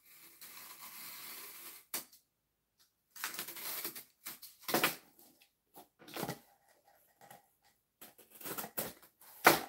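Utility knife slicing through corrugated cardboard in a series of scraping strokes: one long cut at first, then several shorter ones. A short, sharp sound near the end is the loudest of all.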